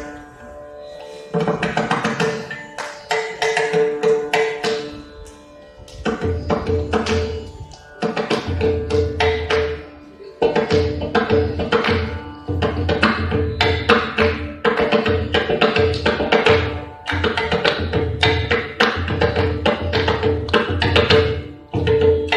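Mridangam solo in a Carnatic thani avartanam: rapid strokes on the tuned right-hand head in phrases with short pauses, with deep bass strokes joining about six seconds in.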